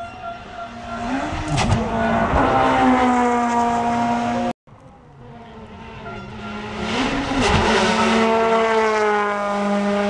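Rally car engines at high revs: one climbs, shifts up once and then holds a high, steady note until a sudden cut about four and a half seconds in. A second rally car then does the same, its note easing slightly near the end.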